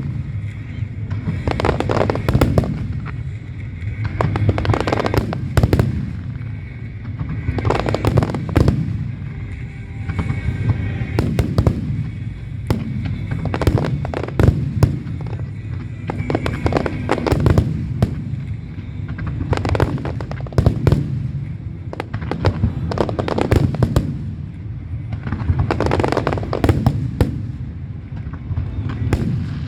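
Fireworks display: a dense barrage of aerial shells bursting in bangs and crackles, coming in waves every few seconds over a continuous low rumble.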